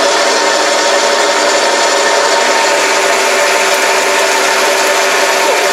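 Boxford AUD metal lathe boring the centre hole of a chuck backplate blank: a steady, loud cutting hiss from the boring bar over the even tones of the running lathe.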